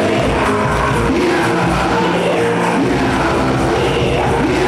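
Live worship music: a band playing with singing voices, loud and steady throughout.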